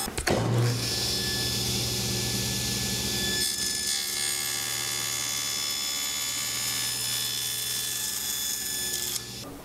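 Table saw running at speed with a steady hum and high whine while a small aluminum bar is fed through the blade on a sled. The sound drops away near the end.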